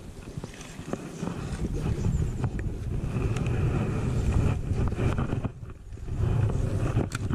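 Wind rumbling on the microphone, with rustling of a jacket and a few light clicks from handling the rod and spinning reel. The rumble eases for a moment a little after halfway.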